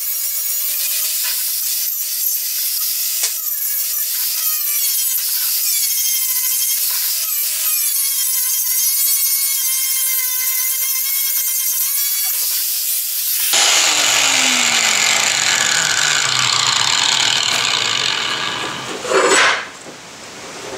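Handheld angle grinder grinding the edge of a steel flat bar, a loud whine that dips and wavers as the disc bites, cutting quickly into the steel. About 13 seconds in the sound turns into a harsher, louder rush with a falling hum, then dies away near the end with a couple of knocks.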